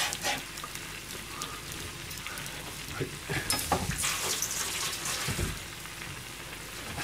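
Meat and vegetables cooking in broth in a pan on a gas stove: a steady sizzling, bubbling hiss with scattered small pops.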